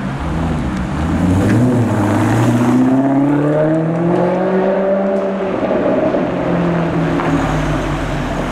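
Maserati GranTurismo V8 accelerating away, its engine note rising in pitch for about four seconds, then dropping as it eases off and settling to a steady run near the end.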